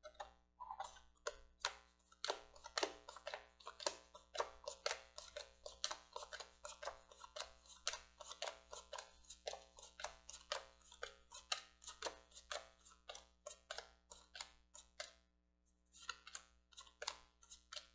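Cardboard game cards being flicked and laid down one after another onto piles, a run of light, irregular card snaps and taps, several a second, with a brief pause near the end.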